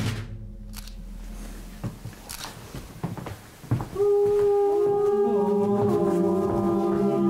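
A drum roll stops, followed by a few scattered knocks. About four seconds in, several voices begin holding long notes, entering one after another and sliding onto pitch to form a steady humming chord.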